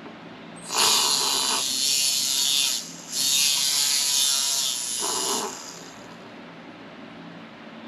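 Small high-speed electric motor whirring in two runs of about two seconds each, separated by a brief pause, then stopping about five and a half seconds in.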